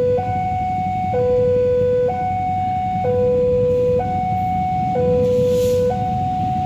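Railway level-crossing warning alarm sounding its electronic two-tone signal, alternating a low and a high note each held about a second. Under it runs the low rumble of the approaching diesel locomotive, with a short hiss about five seconds in.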